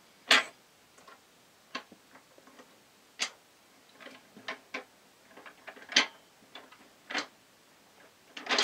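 Lotto barrels slipping off a tilted bowl and dropping into a metal pot: scattered single clicks and clinks, about eight in all. The loudest come just after the start, about six seconds in and near the end.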